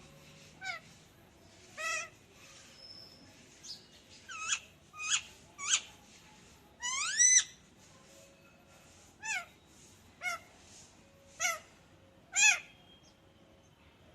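Pet parrot giving a string of about ten short squawks and whistled calls, some sliding up or down in pitch. The loudest is a longer rising call about seven seconds in, and another sharp call comes near the end.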